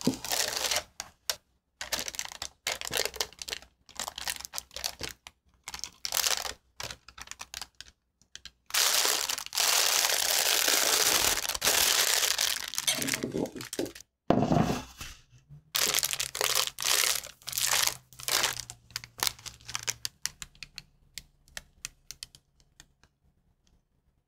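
Clear plastic piping bag crinkling and rustling as it is handled and twisted, in irregular bursts, with a longer unbroken stretch of rustling about nine seconds in.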